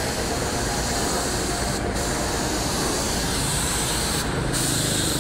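Compressed-air paint spray gun spraying, a steady loud hiss that cuts out briefly twice, about two seconds in and again a little past four seconds.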